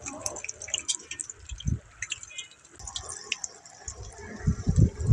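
Pakoras deep-frying in hot oil in an iron karahi, the oil sizzling with many small crackling pops. A few low thumps near the end are the loudest sounds.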